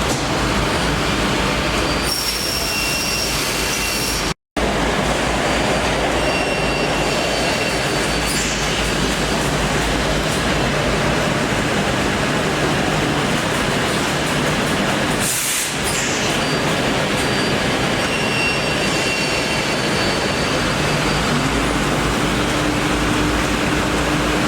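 Woodworking CNC machining centre running, a loud steady mechanical noise with faint high tones coming and going. The sound cuts out for an instant about four seconds in, and near the end a low hum rises in pitch and then holds steady.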